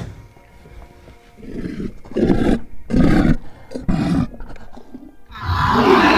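Monster sound effect: a sharp click at the start, then four short, low growls, then a loud, sustained roar that begins about five seconds in as the fish monster appears.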